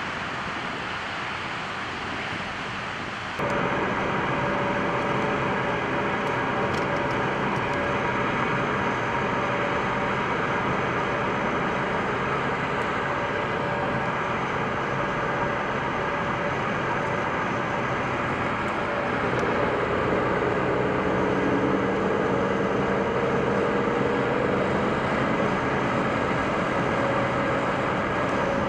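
Steady road and engine noise inside a moving car, with a constant drone. It steps abruptly louder about three seconds in.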